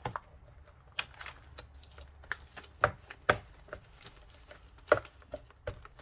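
A handmade paper junk journal being handled: a series of separate sharp taps and knocks, about seven in all, as the pages are moved and the book is closed and pressed down.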